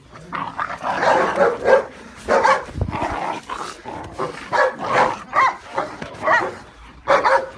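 Rottweiler puppies yipping and barking as they scuffle, short high cries coming two or three a second, with a low thump about three seconds in.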